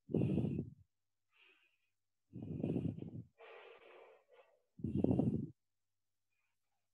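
A person breathing close to a microphone: three loud breaths about two seconds apart, with a fainter breath just after the second.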